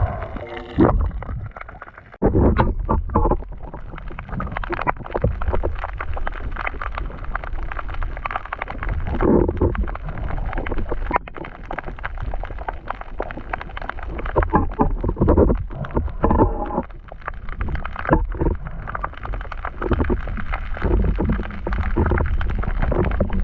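Water heard through an underwater camera's housing: a steady low rumble with irregular surges of bubbling and sloshing.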